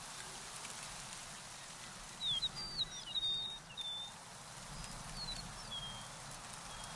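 A small songbird singing a quick run of short, high chirping notes about two seconds in, then a few fainter notes near the end, over a steady outdoor hiss.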